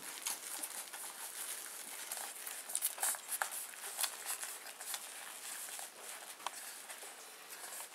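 A litter of newborn Bearded Collie puppies suckling at their mother: a busy, irregular run of small wet clicks and smacks, with some rustling.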